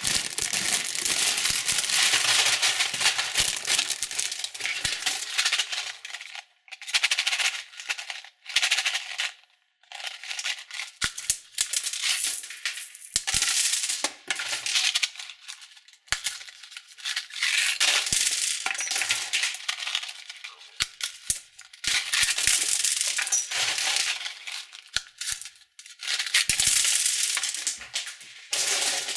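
Wrapped candies being handled: plastic wrappers crinkling and sweets rattling against each other, in bursts with short pauses and scattered clicks.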